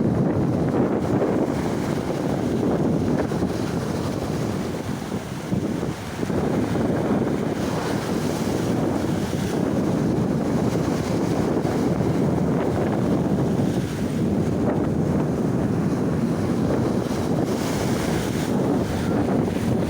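Heavy surf breaking and washing ashore, with strong wind buffeting the microphone in a steady low rumble.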